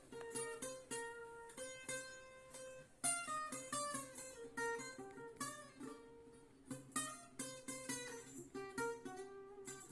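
Acoustic guitar music: a melody of individually plucked notes.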